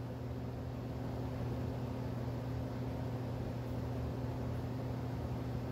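Steady low hum with an even hiss under it, unchanging throughout: background room tone with no distinct events.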